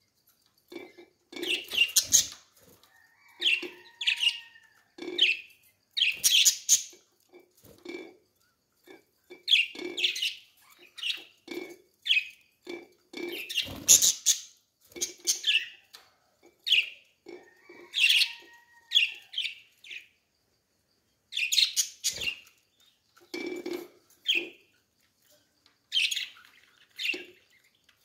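Caged budgerigars chirping and chattering in short, scratchy calls about every second, with a couple of brief pauses.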